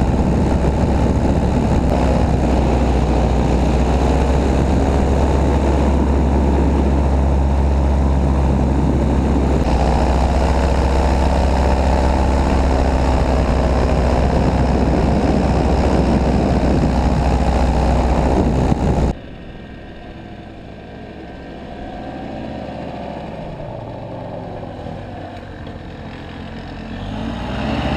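Paramotor engine running steadily close up, with a small change in pitch about ten seconds in. About 19 s in it drops to a fainter engine drone whose pitch rises and falls, growing louder near the end.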